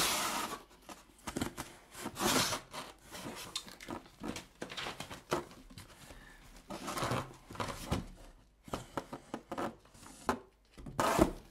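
Cardboard shipping box being opened and rummaged through: irregular scraping, rubbing and rustling of the cardboard flaps, with a hardback book slid out against the cardboard and a louder scrape near the end.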